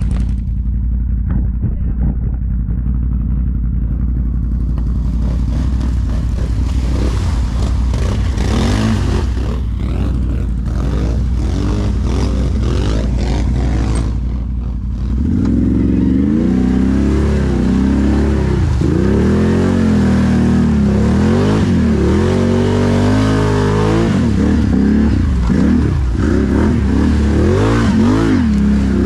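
ATV engine running steadily, then from about halfway louder and revving up and down over and over.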